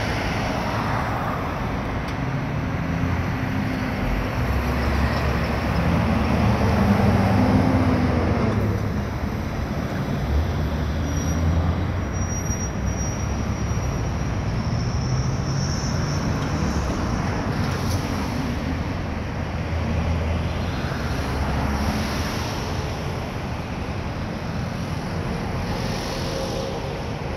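Road traffic: vehicle engines and tyres passing by, a steady rumble that swells as a louder vehicle goes past a few seconds in and again later.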